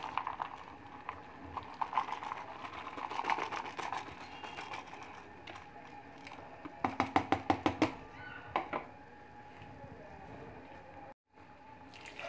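A red plastic mug knocking and scraping against a steel bowl of wet chopped mustard greens, with irregular clicks at first and a quick run of about ten sharp clicks about seven seconds in.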